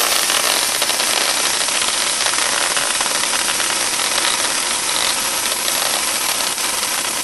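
Homemade BB machine gun firing a continuous stream: a loud, steady hiss with a fast rattle of BBs running through it.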